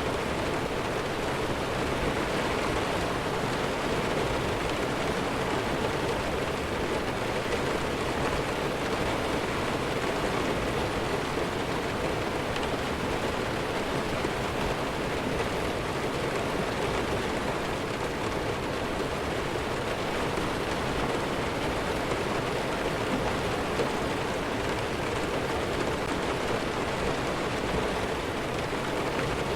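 Steady rainfall, a dense, even hiss with no pauses and no thunder.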